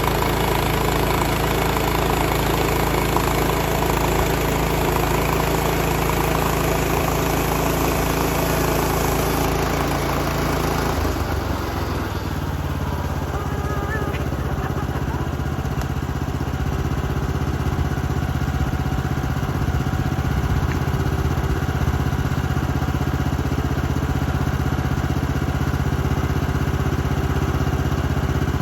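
A sawmill's engine runs steadily throughout. About eleven seconds in, its pitch drops and the higher hiss fades as it settles to a lower speed.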